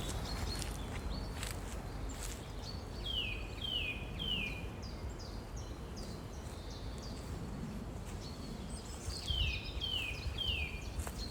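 A songbird singing a phrase of three quick falling whistled notes, twice, about six seconds apart, with thinner high notes around them. Under it runs a steady low rumble, with a few rustles and clicks in the first two seconds.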